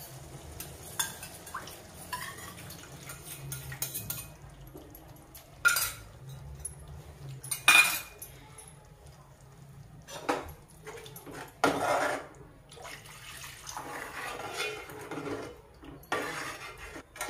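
Stainless steel bowl and spoon clinking against a steel cooking pot as water is poured in and stirred into the thick curry masala, with a few sharp clinks spread through and some sloshing of liquid. A steady low hum runs underneath.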